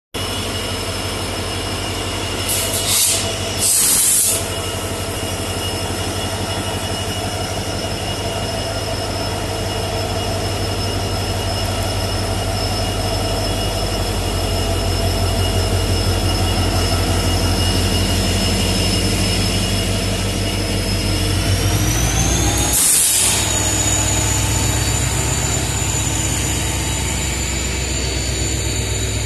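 Indian Railways WDP4D diesel locomotive running under load as it moves the train, its engine hum steady with a high turbocharger whine. Two short hisses come about 3 and 4 seconds in. A little past two-thirds through, the whine and hum rise in pitch as the engine revs up, with another brief hiss.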